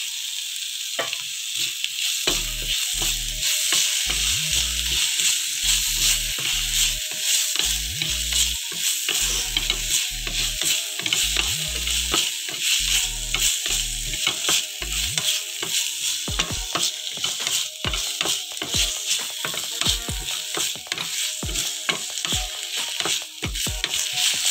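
Sliced onions and tomato slices sizzling in a nonstick frying pan while being sautéed, with a wooden spatula stirring and scraping against the pan in frequent short knocks.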